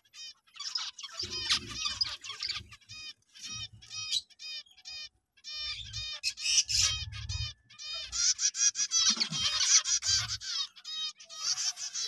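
Many small cage birds chirping in quick, repeated high calls, with several low rumbles in between.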